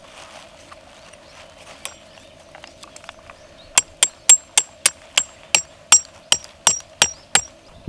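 Hammer driving a metal tent stake into the ground. There are a few light taps at first, then, about halfway in, a run of about a dozen sharp, ringing metal-on-metal strikes at roughly three a second.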